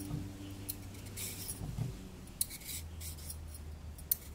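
Metal vegetable peeler scraping the skin off a raw carrot in a series of short strokes.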